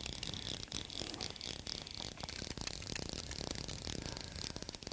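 Fly reel's click-and-pawl ratcheting in rapid, uneven runs of clicks as line is wound in on a hooked fish swimming toward the boat.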